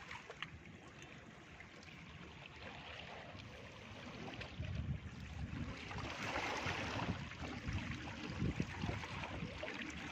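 Seawater lapping and sloshing against breakwater rocks, a steady wash that grows louder from about four seconds in.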